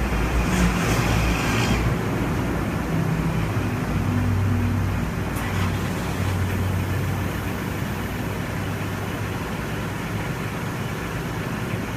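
Road traffic noise over a steady low vehicle engine hum, with a louder rush of noise in the first two seconds.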